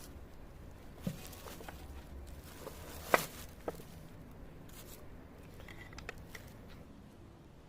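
A few sharp knocks and clicks of objects being handled, the loudest about three seconds in, over a faint low hum.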